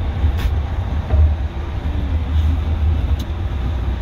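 Car running, heard from inside its cabin as a steady low rumble, with a couple of faint clicks.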